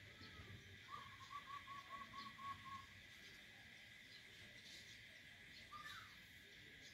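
A bird calling in the background: a quick, even run of about nine short notes on one pitch, then a single short note near the end, over a steady faint high hiss.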